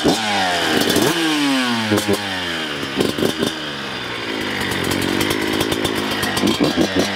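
2003 Suzuki RM125's 125 cc single-cylinder two-stroke engine being revved in quick throttle blips, its pitch dropping back toward idle after each, several times.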